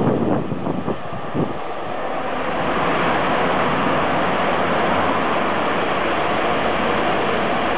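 The last container wagons of a freight train clatter away over the rails, with a few sharp knocks in the first second or two. Then a steady rushing noise builds as a second freight train, hauled by an electric locomotive, approaches.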